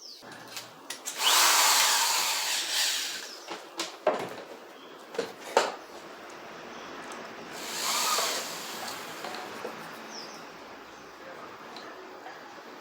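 Electric drill running in two bursts of a couple of seconds, driving screws into pieces of a wooden stool, with a few sharp knocks of wood in between.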